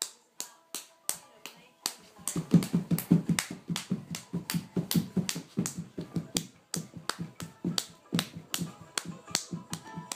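Even, crisp hand clapping at about three claps a second, joined about two seconds in by fast-strummed balalaika music from a tablet's small speaker.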